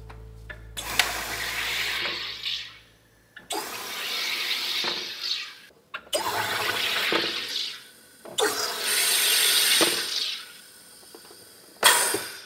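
SodaStream Terra soda maker carbonating a bottle of water: four presses of the button, each a 1.5–2 second hiss of CO2 gas bubbling into the water, then a short, sharp burst near the end.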